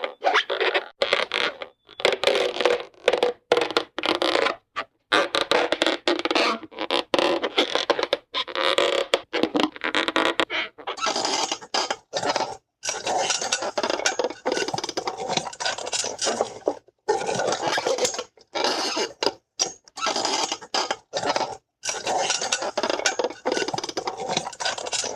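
Hanna-Barbera cartoon squeak sound effects: many short squeaks in quick runs, cut apart by brief silences. From about halfway the squeaks get higher and brighter.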